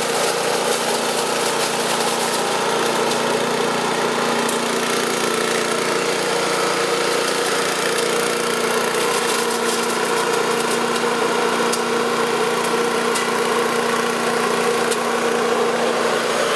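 Four-stroke engine of an HCT VBS8574 leaf vacuum-shredder running steadily at constant speed.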